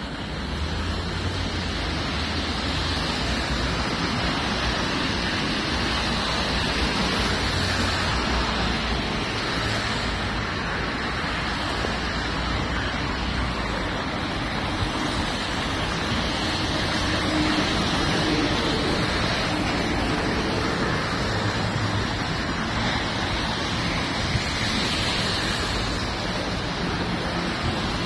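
Steady rushing hiss of city traffic on rain-soaked streets, with car and bus tyres on wet asphalt mixed with rain. A low rumble sits underneath and fades about halfway through.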